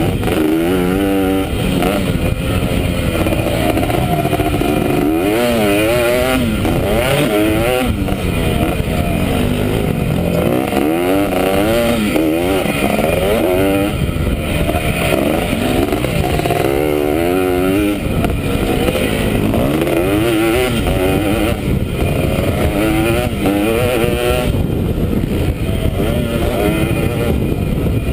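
Dirt bike engine revving up and easing off over and over, its pitch rising and falling with throttle and gear changes, heard from the rider's helmet camera.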